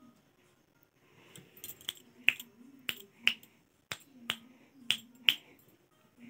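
A quick, irregular run of about ten sharp clicks, the kind made to catch a baby's attention, bunched between about a second and five seconds in, with a faint low voice humming between them.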